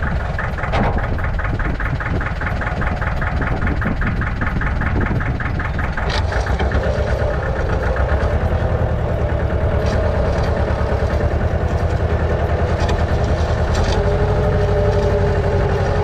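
An engine running steadily, with a fast, even ticking in its sound for the first several seconds and its pitch dropping slightly near the end.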